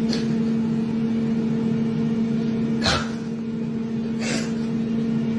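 A steady, fairly loud motor hum, like an appliance running, with three short clicks or knocks: near the start, about three seconds in and about four seconds in.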